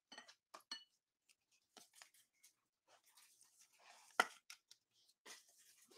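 Faint plastic scraping and rustling as a sleeved trading card is slid into a rigid plastic toploader, with a sharper click about four seconds in.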